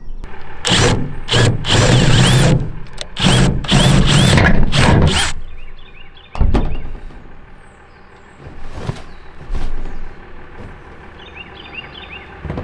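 Rubbing and knocking noise from a hand-held camera being handled and turned, in several loud bursts over the first five seconds, then a single thump about six seconds in.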